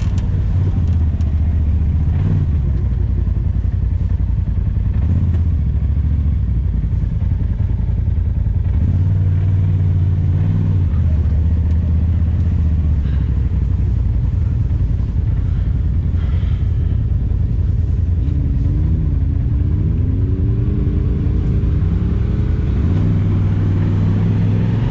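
Off-road vehicle engine running steadily on the trail, its pitch shifting up and down with the throttle and rising and falling several times near the end.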